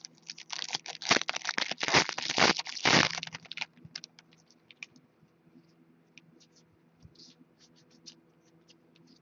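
Hockey trading-card pack wrapper being torn open and crinkled, with cards slid and handled: a dense run of scratchy rustling for about the first three and a half seconds, then scattered light clicks and ticks.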